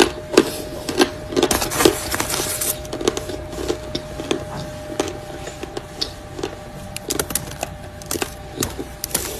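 Close-up crunching of edible chalk and clay being bitten and chewed: sharp, irregular crunches a few times a second, with a faint steady tone beneath.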